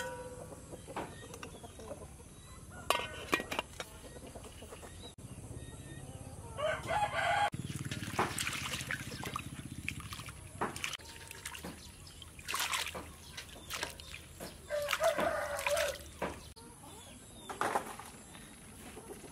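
A rooster crowing in the background, twice, each call lasting about a second. In between, water sloshes and splashes in a metal basin as hands wash green onions in it.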